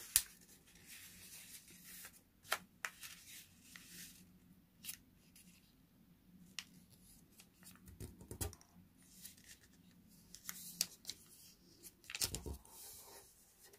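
Faint rustling and scattered crisp ticks of a sheet of origami paper being opened out and pressed flat into a squash fold by hand.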